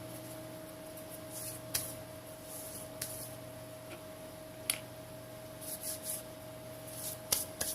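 Hands handling small phone parts during reassembly: soft rustles and a few sharp clicks, over a steady low hum.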